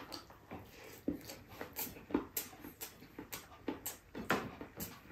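Close-miked mouth sounds of a person eating rice and spare ribs by hand: wet chewing and lip smacks, a dozen or so short, sharp clicks at an irregular pace.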